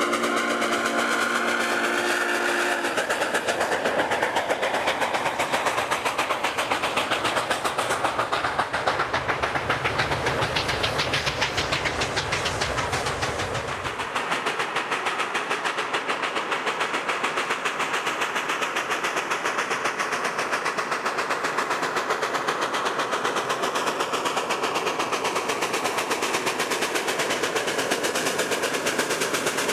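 2-8-0 steam locomotive No. 734 working hard, its stack exhaust a rapid, even run of sharp chuffs. It opens with a long blast of its steam whistle that ends about three seconds in. A deep rumble lies underneath for several seconds in the middle.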